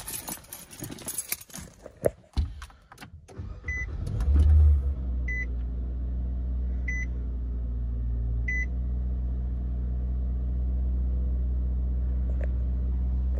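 Car engine starting about four seconds in, after a few handling knocks, then idling steadily. A dashboard chime sounds four times, about a second and a half apart, as the engine settles.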